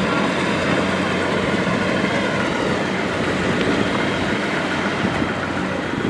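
Rice-harvesting machinery running steadily: the engine of a Kubota combine harvester together with a small tractor's engine, a constant low hum under a dense mechanical noise.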